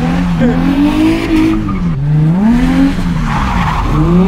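Nissan 350Z's V6 engine revving hard through a drift, its pitch climbing and dropping three times as the throttle is worked. There is a rush of tyre noise on the wet asphalt about three seconds in.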